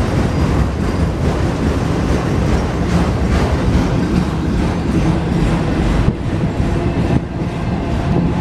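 Autorack freight train rolling by close at hand: a steady, loud noise of steel wheels on the rails.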